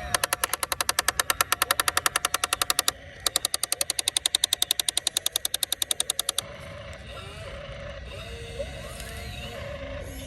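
Breaker hammer pounding in rapid blows, about nine a second, in two runs of about three seconds each with a short pause between, stopping abruptly about six seconds in; a low steady machine background continues.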